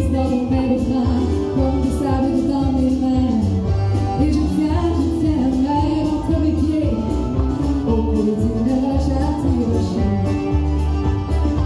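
Live country song: a woman singing a melody into a microphone over amplified accompaniment with a steady, pulsing bass beat, carried through the stage PA.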